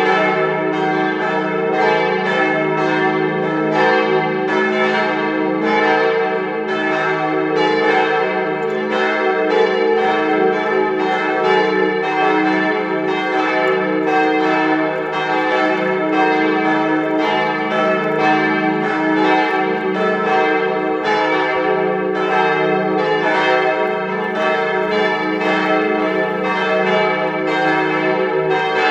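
Several church bells ringing together as a partial peal (Teilgeläut), their strokes overlapping in a steady, continuous mass of ringing tones.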